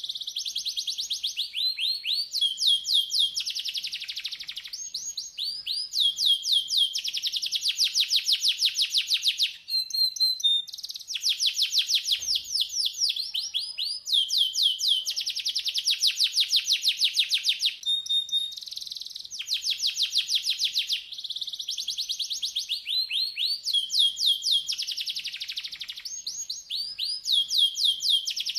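Domestic canary singing a continuous song of fast trills, each phrase a run of rapidly repeated high sweeping notes that switches to a new trill every second or two, with brief breaks about ten and twelve seconds in. This is canary tutor song ('masteran'), played to teach other canaries to sing.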